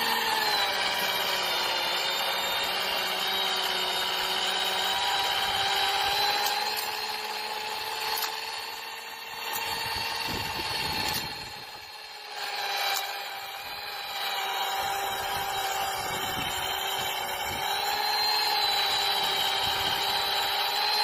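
Small electric motor of a remote-controlled model snowblower whining as it throws snow. It is a steady, high, power-tool-like whine that sags in pitch a couple of times and drops in loudness for a few seconds about halfway through.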